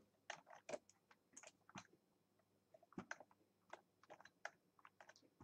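Faint, irregular clicks of a computer mouse and keyboard, about fifteen scattered short taps.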